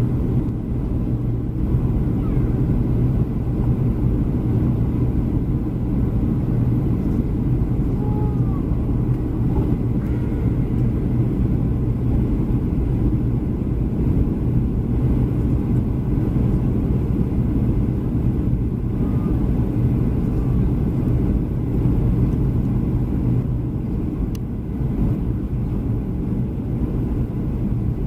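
Steady low cabin rumble of a Boeing 737-300, its engines running, heard from inside the passenger cabin.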